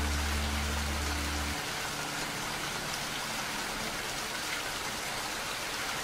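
Steady rain falling, an even hiss of many drops. Low sustained notes of background music fade under it and stop about a second and a half in, leaving only the rain.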